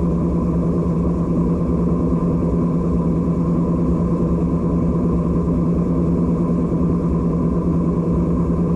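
John Deere 9500 combine running steadily at working speed, its diesel engine and threshing machinery giving a constant low hum.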